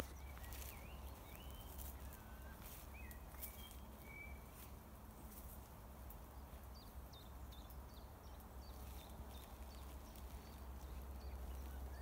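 Songbirds singing faintly: short whistled phrases at first, then quicker, higher chirps from about halfway in. Scattered soft crackling clicks of footsteps on dry grass come with them, over a steady low rumble.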